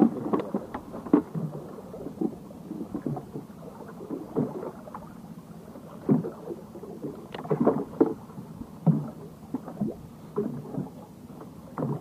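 Waves slapping and knocking against the hull of a small boat, in irregular splashes every second or so over a low steady wash of water.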